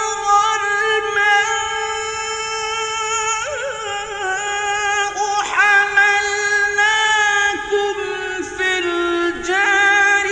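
A male Quran reciter chanting in the melodic mujawwad style: long held notes in a high register with warbling ornaments, and a new phrase starting about halfway through.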